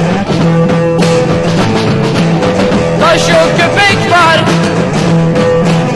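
Late-1960s Turkish garage punk rock song: a full rock band playing loudly and steadily, with a wavering, bending melodic line in the middle.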